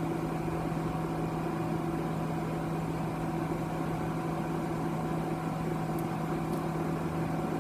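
Steady hum of running bench electronics: a low tone and its overtone over an even whir, with no change in level.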